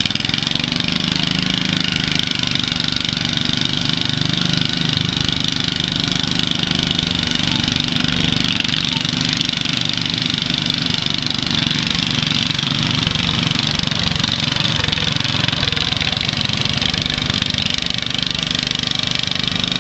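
Lawn mower engine running steadily after being pull-started, an even, unchanging running note.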